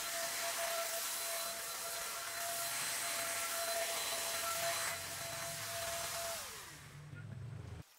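Electric paint spray gun running with a steady hiss, switched off about six and a half seconds in, its motor winding down with a falling whine.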